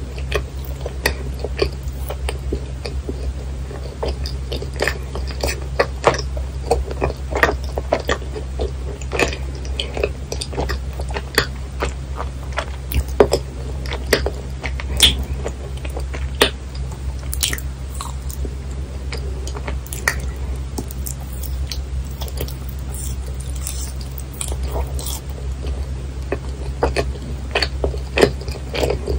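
Close-miked chewing of chewy yakgwa, a Korean honey cookie: many irregular small clicks and smacks of the mouth working the dough, over a steady low hum.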